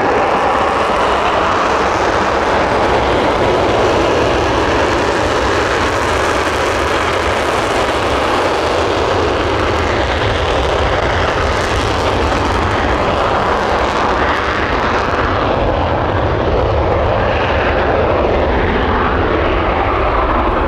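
Saab JAS-39C Gripen's single Volvo RM12 turbofan, a loud, steady jet engine noise held for the whole stretch as the fighter flies its display.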